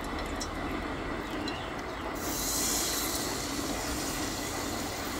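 Hot ghee in an aluminium kadai starting to sizzle as blended date paste is scraped into it with a wooden spatula, a few light taps first, then a steady hiss setting in about two seconds in.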